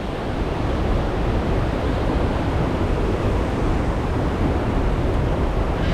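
Steady rushing noise of river water pouring over a weir, mixed with wind buffeting the microphone.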